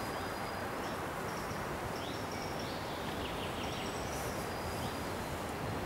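Woodland songbirds singing faintly: thin high notes, with a few short falling notes a couple of seconds in, over a steady low hum of the distant city.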